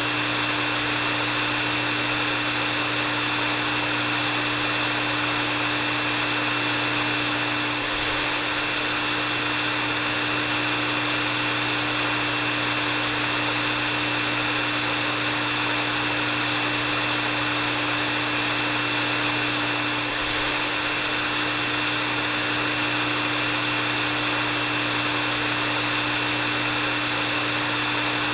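Hair dryer running steadily: a continuous rush of blown air with a constant low hum and a higher steady whine.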